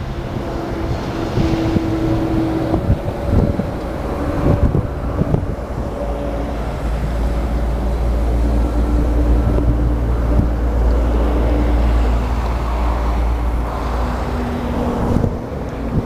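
Heavy diesel machinery running, a deep steady drone with a few held engine tones that shift in pitch now and then. The drone grows stronger about seven seconds in and eases near the end. Wind buffets the microphone in the first few seconds.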